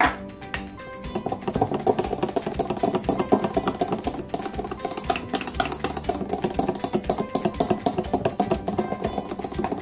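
A small glass dish clinks down on the counter at the start. From about a second in, thick akara batter of ground black-eyed peas is whisked fast by hand in a glass bowl, a rapid run of beating strokes that aerates it so that it rises and turns fluffy.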